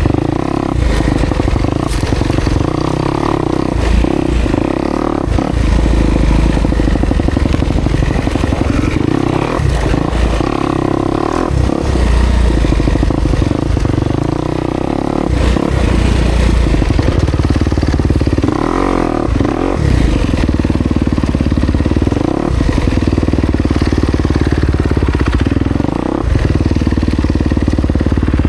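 Kawasaki KX250X dirt bike's single-cylinder four-stroke engine running under load off-road, the revs rising and falling again and again, with occasional knocks.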